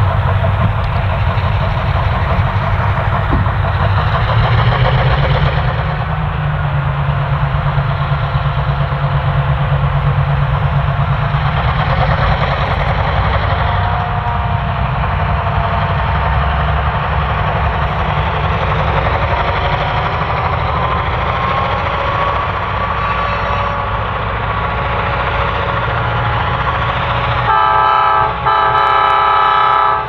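Diesel-electric locomotives hauling a train, a steady deep engine rumble with rail noise. Near the end a multi-note train horn sounds in two blasts, the loudest part.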